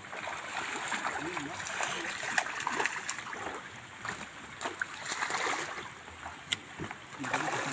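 A hooked fish splashing at the water's surface as it is reeled in and lifted toward the landing net. The splashing comes in uneven surges, with a few sharp clicks.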